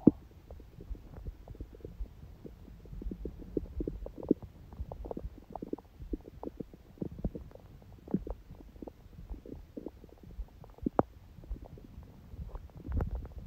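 A person's stomach gurgling gently: a run of small, irregular low pops and gurgles, with a sharper gurgle about eleven seconds in and a longer low rumble near the end.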